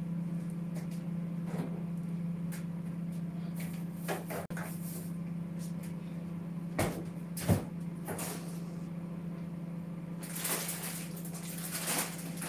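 Steady low hum with off-screen kitchen handling noises: two sharp knocks about seven seconds in, a smaller one earlier, and a brief rushing hiss near the end.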